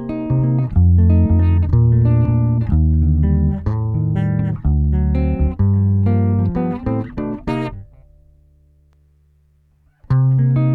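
Electric bass guitar played through a compressor pedal: a busy line of plucked notes, then one low note held and fading for about two seconds before the line starts again near the end.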